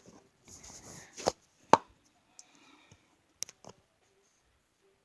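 Handling noises: a soft rustle, then a few separate sharp clicks and knocks, the loudest a little under two seconds in.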